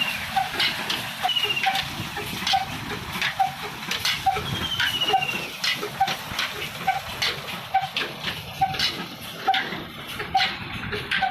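Old Ruston Hornsby slow-speed diesel engine running at a steady slow beat, a knock a little under once a second, while it drives a belt-driven water pump, with water gushing and splashing beneath. A few short falling whistles are heard over it.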